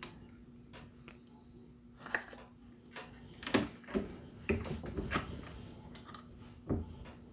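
Light clicks and knocks from working an RCBS single-stage reloading press: brass cartridge cases set into the shell holder and the ram raised and lowered to seat bullets. The taps come irregularly over a faint steady hum.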